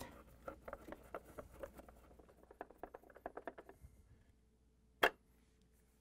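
Quarter-inch nut driver turning screws into the plastic dispenser panel: a quick run of small, irregular clicks and creaks for about four seconds. A single sharp click about five seconds in.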